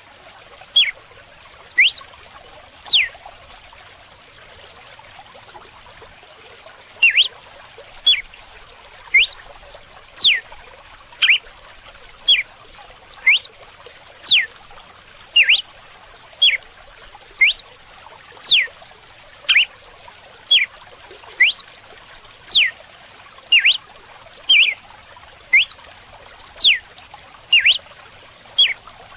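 Red-cowled cardinal (galo-de-campina) singing its whip-like 'açoite' song: short, sharp whistled notes about one a second, some sweeping steeply down and others rising, with a pause of about four seconds after the first few notes. Running water trickles steadily underneath.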